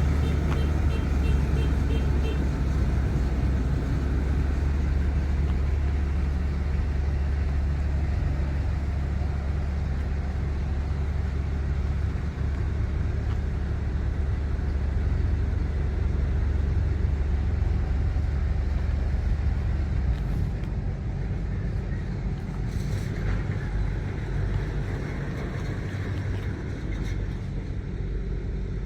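Combine harvester's engine running with a steady low drone. The deepest hum drops away about twenty seconds in, while the machine keeps running.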